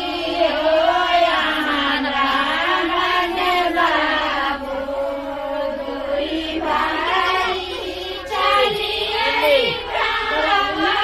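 Women singing a song together in long, wavering held notes, phrase after phrase.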